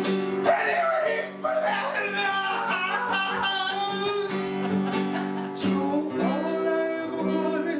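Acoustic guitar song, strummed guitar with a voice singing over it.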